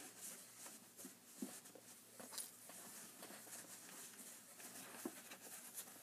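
Near silence, with faint rustling of woven fabric strips and a few soft ticks as straight pins are handled, pulled out and pushed back into the fabric.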